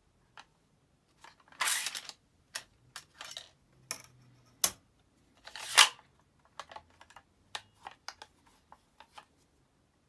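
Metabo 18-gauge brad nailer firing nails as sharp clacks, the loudest about two thirds of the way in, among lighter clicks and taps of handling.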